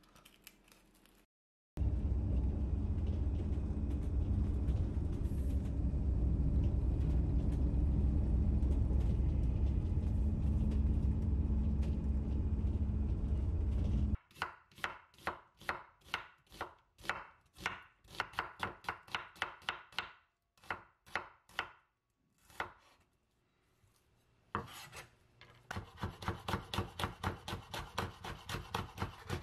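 A steady low rumble like wind buffeting the microphone for the first half. Then a kitchen knife chopping garlic chives on a wooden cutting board, quick even strokes of about four a second, with a pause in the middle.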